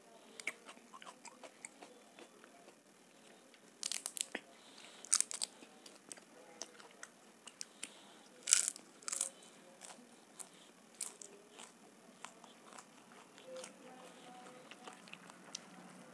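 Crisp papad bitten and chewed close to the microphone: several loud, sharp crunches between about four and eleven seconds in, the loudest about eight and a half seconds in, among softer chewing clicks.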